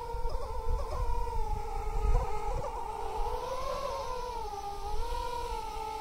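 Racing quadcopter's 2600 kV brushless motors and propellers whining, the pitch wavering up and down with the throttle and rising and falling once about halfway through. A gusty low rumble of wind on the microphone runs underneath.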